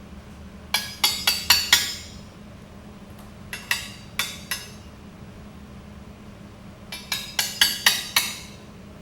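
Hammer striking steel plate in three quick runs of ringing blows, about five, then three, then six, while the plate is tapped into position to level it.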